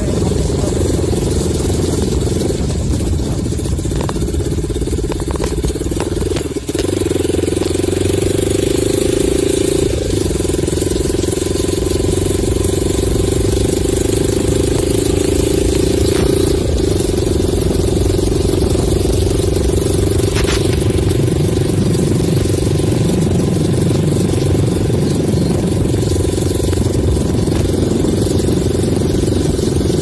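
Motorcycle engine running steadily at low road speed, with tyre and wind noise as the bike is ridden over a rough, rutted dirt road.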